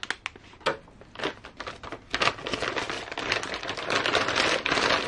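Clear plastic parts bags crinkling as they are handled, with scattered light clicks at first that turn into a denser, continuous crinkling from about two seconds in.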